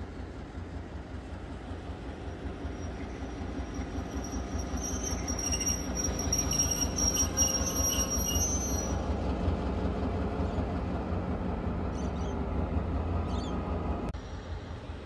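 NSW 421 class diesel locomotive 42103 running slowly through a station yard: a steady low diesel rumble that grows louder toward the middle. From about four and a half seconds in, a high wheel squeal on the curved track lasts a few seconds, and two short high chirps come near the end.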